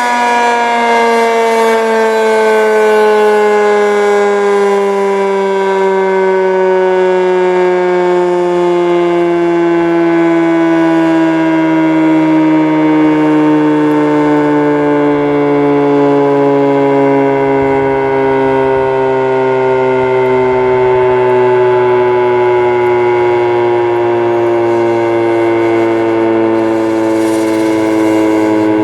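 Federal Signal 3T22 three-tone siren winding down after an attack-mode test: its chord sinks slowly and smoothly in pitch throughout, a long wind-down.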